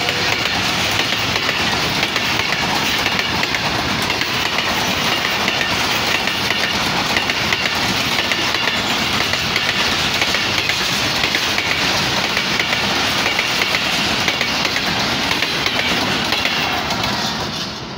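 Express train's passenger coaches running past at speed: a steady rush of wheel and body noise with a quick run of clacks as the steel wheels cross rail joints. It drops away near the end as the train moves off.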